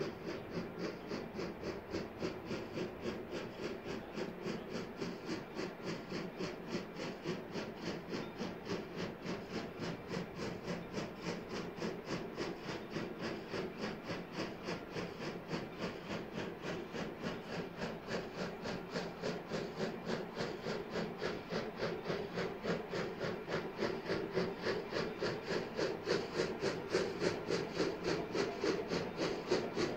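Exhaust of Polson Logging Co. 70, a Baldwin 2-8-2 steam locomotive, working hard: a steady, even chuff of about three to four beats a second, growing louder over the last third.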